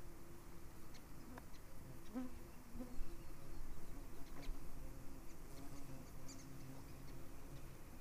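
Flying insects buzzing close by, a wavering hum that drifts in pitch and comes and goes, with a few faint ticks.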